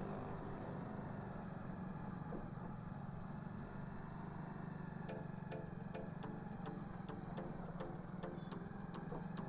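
Motorcycle engine running steadily under way. About halfway through, a turn-signal indicator starts ticking about twice a second as the bike turns.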